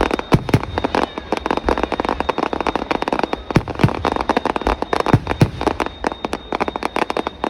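Aerial fireworks bursting: a dense, continuous crackle of many small reports, with several louder booming bangs about half a second in, twice near the middle and twice a little after.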